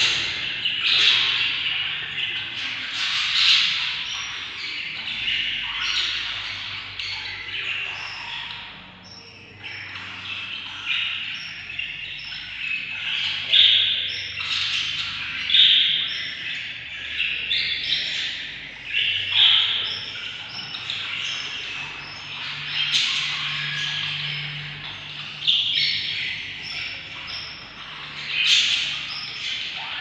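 Budgerigar chicks in a nest box giving a constant chatter of raspy chirps and squawks, swelling louder every second or two.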